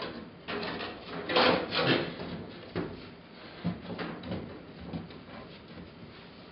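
A refractory panel scraping and knocking against the steel firebox and the neighbouring panels as it is pushed and wiggled into place, with a few loud scrapes in the first two seconds and then lighter knocks that thin out. The panel binds: it is about a quarter inch thicker than the one it replaces and will not slip in.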